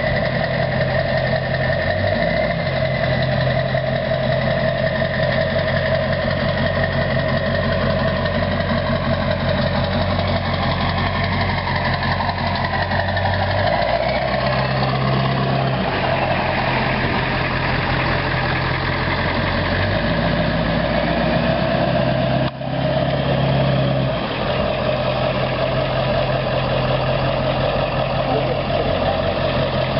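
Ford 7.3 L Powerstroke turbodiesel V8 of an F-250, through a 4-inch straight pipe, running steadily near idle. Its low drone shifts in pitch a few times, with a brief drop in loudness about two-thirds of the way through.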